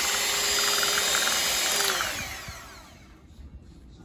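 Electric hand mixer running, its beaters churning thick sweet potato pie filling in a pot. About two seconds in it is switched off and its whine falls in pitch as the motor spins down.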